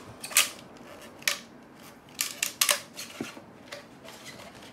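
Rolled paper poster being worked out of a cardboard poster tube: a run of short, crisp paper scrapes and rustles, the strongest about a second in and again between two and three seconds in.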